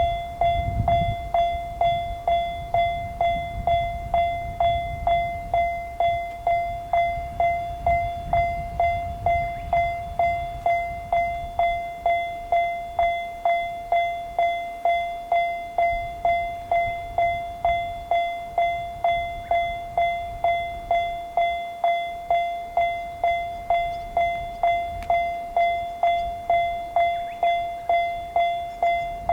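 Japanese railroad crossing warning bell ringing in a steady, even 'kan-kan' rhythm of about two strikes a second, with a low rumble underneath in the first half.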